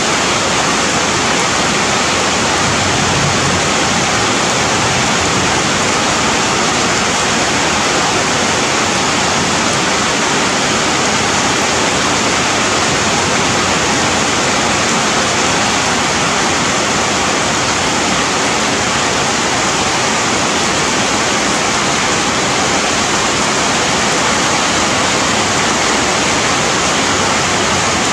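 Steady rain falling on forest leaves and branches: a loud, even hiss that never lets up.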